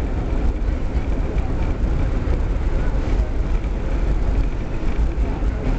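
Vintage R-1/9 subway train running at speed, heard from aboard: a steady, loud rumble of wheels on rails and car noise.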